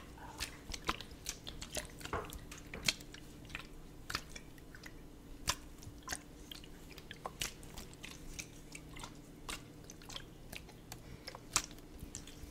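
Plastic spray bottle with a trigger head handled close to the microphone, giving irregular crisp clicks and crackles, several a second.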